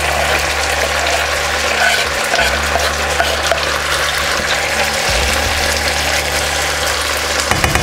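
Chicken thigh pieces and chopped onion frying in hot oil in a pan, a steady sizzle as the onion is scraped in and stirred with a spatula, over a steady low hum.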